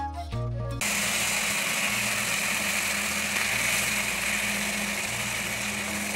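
Sliced tomatoes sizzling in hot tempered oil in a kadai, a loud steady hiss that starts abruptly about a second in as they hit the oil. Background music stops as the sizzling begins.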